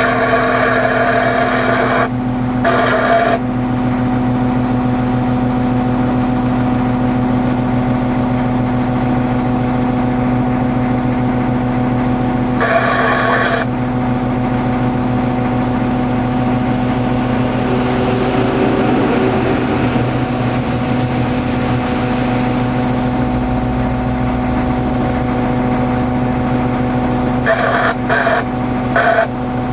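Diesel engine of heavy road-building equipment running steadily, a constant drone, with short bursts of a higher, broken sound over it at the start, about halfway through and near the end.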